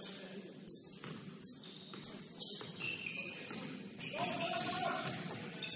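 Basketball shoes squeaking on a gym floor in short high chirps, with sharp thuds of a ball bouncing about every 0.7 s over the first two seconds. A short shout about four seconds in.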